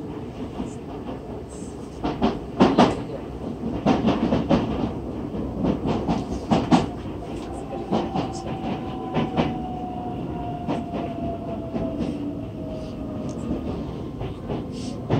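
Running noise inside a Nagoya Municipal Subway N3000-series car: a steady rumble with wheels clacking over rail joints. From about eight seconds in, a faint whine from the traction motors falls slowly in pitch as the train slows for the next station.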